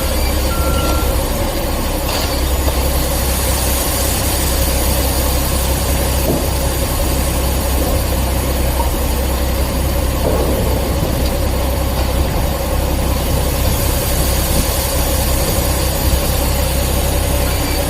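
Heavy diesel engine running steadily with a constant whine over a low rumble, typical of a concrete truck working at a slab pour. A vehicle backup alarm beeps right at the start.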